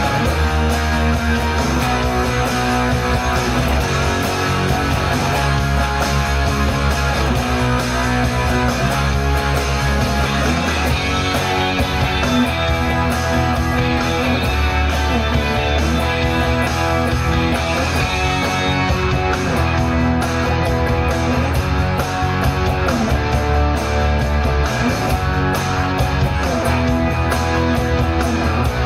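Electric guitar from a Les Paul-style solid-body, played along to a full rock backing track with drums and bass.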